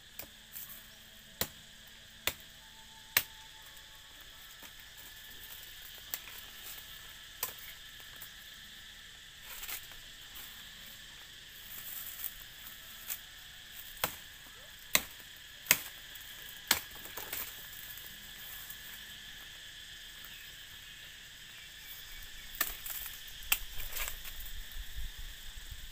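A large knife cutting at woody stems: sharp chops and snaps at irregular intervals, over a steady high drone of insects.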